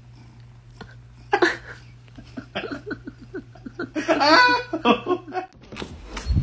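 A man laughing in short repeated bursts, building to a louder, longer laugh about four seconds in, over a steady low hum. The laughter and hum cut off about five and a half seconds in.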